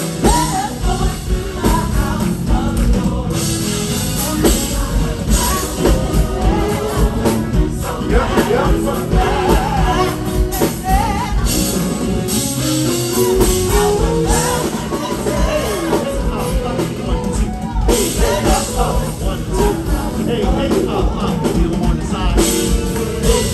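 A live band plays gospel music with a singer's voice over it, backed by a drum kit and bass. The music runs loud and without a break.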